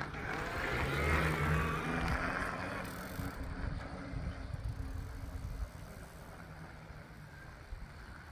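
Quietkat Jeep fat-tire electric bike pulling away under full (level 5) motor assist. The whir of its motor and fat tyres on asphalt is loudest about a second in, then fades steadily as it rides off into the distance.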